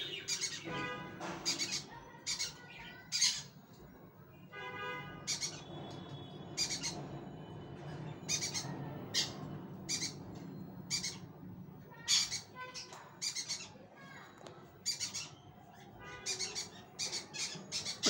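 Pet cockatiel and yellow Indian ringneck parakeet calling: a long run of short sharp squawks and chirps, with a few brief pitched whistled phrases among them.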